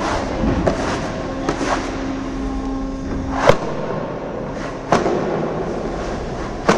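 Three sharp cracks, roughly a second and a half apart, over a steady background din.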